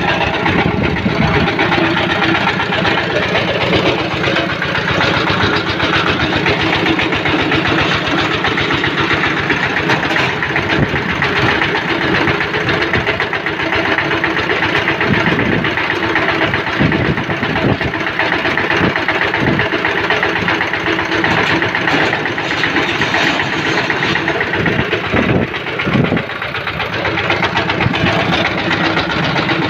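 Red stationary diesel engine driving the winch of a concrete bucket hoist, running steadily with a fast even knock.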